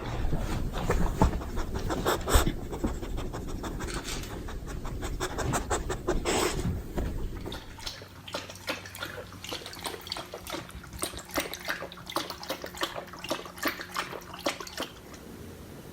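A beagle panting rapidly with quick, wet mouth clicks. It is louder for the first half, then lighter and more even.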